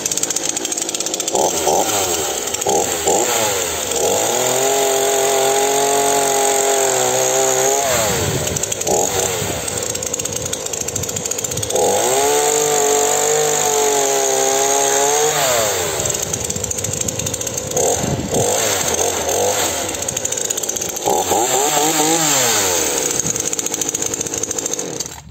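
Titan TTL759CHN 40 cc two-stroke petrol chainsaw running: short throttle blips, long runs at high revs and drops back to idle, with a stretch of cutting into a log. The engine stops near the end.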